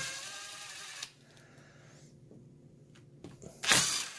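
Brushless cordless drill/driver whirring for about a second as it backs out Phillips screws from a drill's gear housing, with a second short burst near the end.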